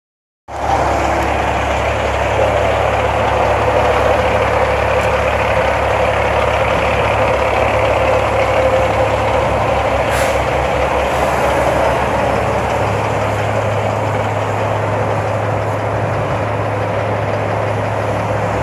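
Heavy diesel engine idling steadily, a continuous low hum under a broad rumble.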